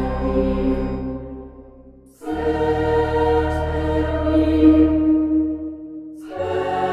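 Background music: a choir singing slow, held chords, one dying away, then a new chord entering about two seconds in and another near the end.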